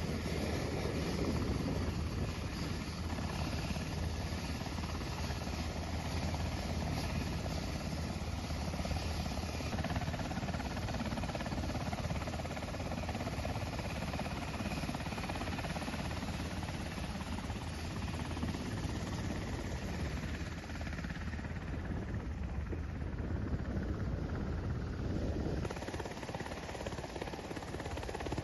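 Black Hawk military helicopter running on the ground, its rotor and turbine making a steady, even noise with a low hum underneath. The tone shifts a little about ten seconds in and again near the end.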